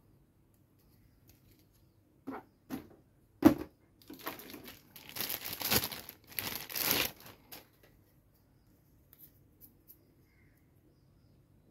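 A few hard plastic knocks as toy belt parts are handled in their box, the loudest a sharp clack about three and a half seconds in. Then a clear plastic packaging bag crinkles for about three and a half seconds, followed by a few faint clicks.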